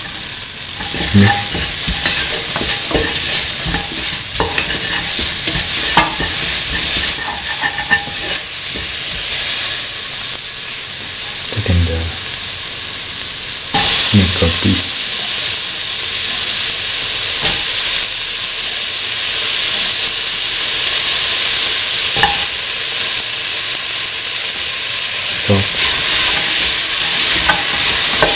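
Onions, garlic and tomato sizzling in hot oil in a stainless steel pan, with a spatula stirring and scraping against the metal in short clicks. About halfway through, chunks of snake gourd drop into the pan and the sizzle jumps louder.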